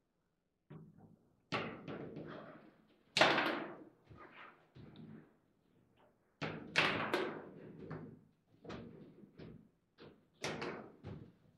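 Table football being played: the ball struck by the rod-mounted player figures and the rods banging against the table, a series of sharp knocks and bangs at irregular intervals, the loudest about three seconds in.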